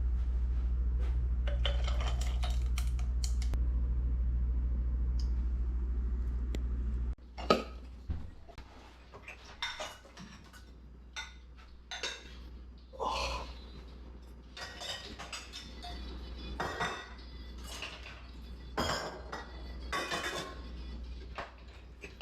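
A steady low hum for about the first seven seconds that cuts off abruptly, then dishes and cutlery clattering and clinking irregularly as they are handled.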